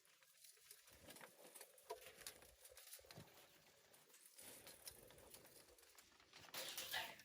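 Chickens pecking and scratching at feed: faint scattered taps, with a louder rustle near the end.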